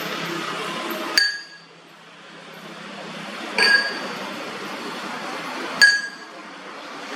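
Three ringing metal-on-metal clinks about two seconds apart, each leaving a short high ring. A steady running noise drops away at the first clink and slowly builds back.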